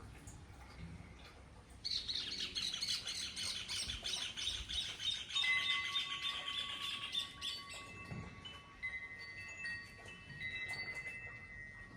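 Birds chirping: a dense, rapid chatter of high chirps begins about two seconds in and lasts several seconds. A few clear, held whistle-like tones follow, repeated on and off.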